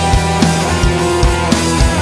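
Rock music with a live drum kit played over it: a DW Design maple kit with Paiste cymbals, the kick drum landing on a steady beat about every half second under cymbals and the band's track.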